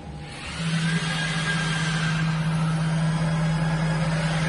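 A motor on a CNC router starts about half a second in and then runs at a steady low hum with a hiss over it.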